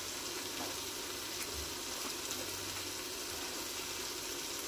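Onion-tomato masala sizzling gently in oil in a pressure cooker pot: a steady soft hiss with a few faint pops.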